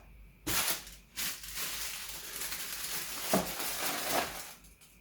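Packaging crinkling and rustling as it is unwrapped by hand: two short crackles about half a second and a second in, then a few seconds of steady rustling that stops shortly before the end.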